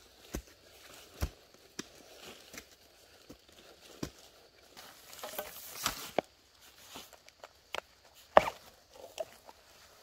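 Digging a bamboo shoot out of loose soil: scattered knocks and thuds of a metal-bladed digging bar and hands scraping away soil and dry bamboo leaves. The sharpest knock comes about eight seconds in.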